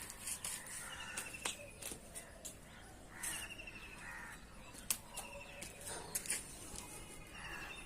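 Birds calling outdoors: a mix of short sharp chirps and quick trills of rapidly repeated notes that come back every couple of seconds.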